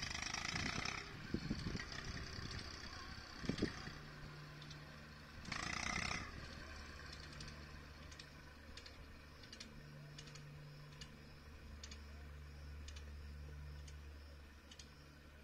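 Distant tractor engine running steadily at a low hum. Two gusts of wind buffet the microphone, one at the start and one about six seconds in, with a few handling knocks in the first few seconds and faint scattered ticks later.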